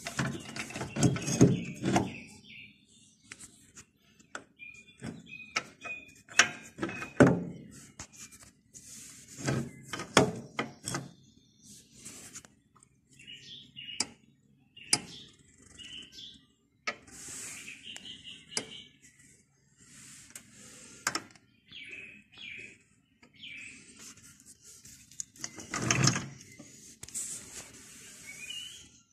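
Steel gears and shafts clinking and knocking against the cast gearbox housing of a Taral M51 walking tractor as the gear cluster is worked into place by hand, with heavier knocks about a second in and again near the end.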